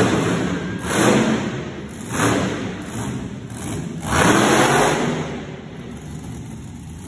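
Monster truck engines revving in an indoor arena, in four surges, the longest and loudest about four seconds in, then settling to a lower steady run.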